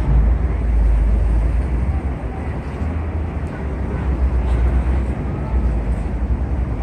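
Low, steady rumble of a ferry under way, with wind buffeting the microphone.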